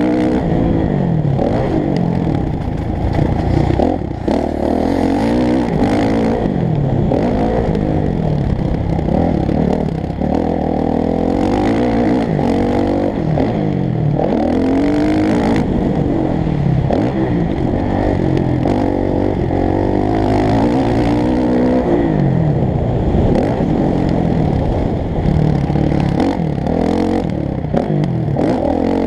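Motocross bike engine revving hard and dropping away again and again as the rider accelerates, shifts and backs off around the dirt track, heard through an onboard camera with wind noise.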